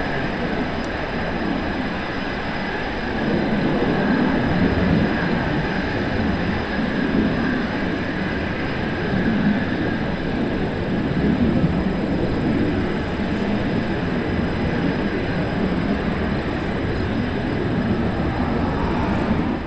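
L-159 jets' Honeywell F124 turbofan engines running steadily at low power on the ground, a rumble under a thin, constant high whine.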